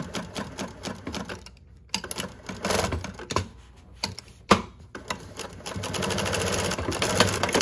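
New-Tech GC-8752-04 twin-needle industrial lockstitch sewing machine with a direct-drive motor, stitching through layered denim in a fast, even rhythm. It stops about a second and a half in, a few sharp clicks follow, and it runs steadily again for the last couple of seconds.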